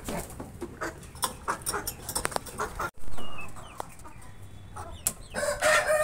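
An Aseel rooster starts a long, steady crow near the end. Before it come scattered clicks and taps, a brief rustle about three seconds in, and a few faint short clucks.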